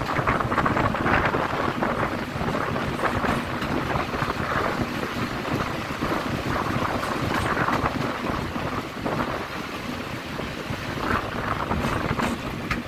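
Class 33 diesel locomotive running with its train at speed, its engine under a steady rush of wind buffeting the microphone held out of the carriage window.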